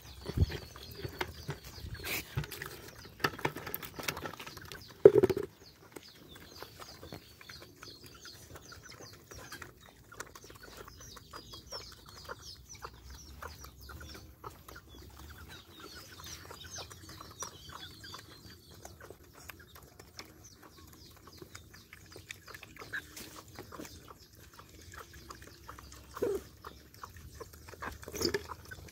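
Several dogs eating wet rice mush from a tyre feeder: a steady run of small wet lapping and chewing clicks. Chickens cluck and chirp close by, in stretches near the start and again about halfway. There is one loud short sound about five seconds in, and a few short low animal sounds near the end.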